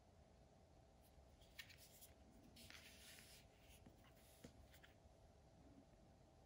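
Faint rubbing and scraping of two black plastic Wera Tool-Check Plus socket-and-bit cases being handled and turned over in the hands, with a couple of light clicks, from about a second in until about five seconds in.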